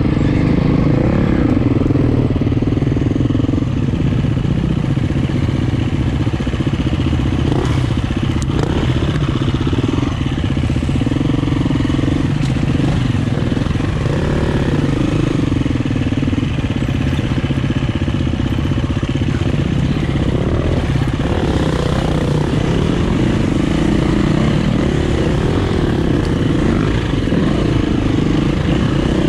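Enduro dirt bike engine running on a rough trail, its pitch rising and falling continuously with the throttle, heard close up from the rider's own bike.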